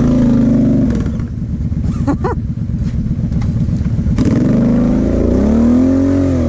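Kawasaki KFX 700 quad's V-twin engine, heard up close from on board, revving in bursts over rough ground. Revs drop about a second in, stay lower through the middle, then swing up and fall back near the end.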